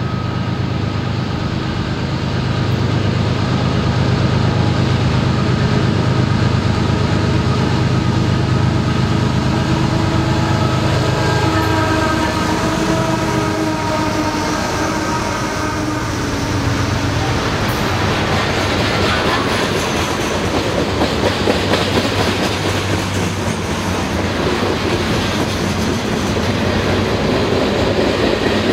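CSX diesel freight locomotive running past, its engine and tones dropping in pitch as it goes by about halfway through. Then the steady rattle and clickety-clack of the loaded container cars rolling past on jointed track.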